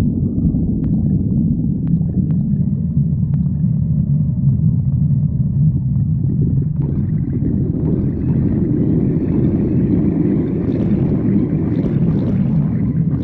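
A person's stomach growling, heard up close as a continuous low rumble. About seven seconds in it takes on a higher, hissier edge over the rumble.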